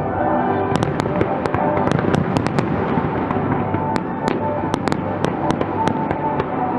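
Fireworks display: a rapid run of sharp bangs and crackling pops from aerial shells, many in quick succession, over music playing.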